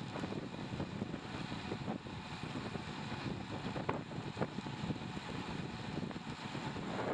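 Wind rushing over a bicycle-mounted camera's microphone while riding, with road and tyre rumble on a wet road and a few brief knocks.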